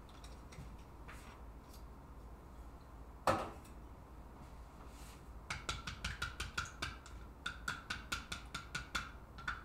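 Chopsticks beating eggs in a glass bowl: a rapid, even run of light clinks, about five or six a second, starting about halfway in. A little before that comes one sharp knock, the loudest sound.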